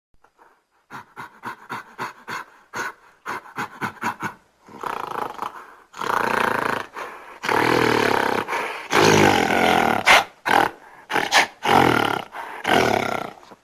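Western gorilla calling: a run of short, quick calls for the first few seconds, then longer, louder calls with brief breaks between them.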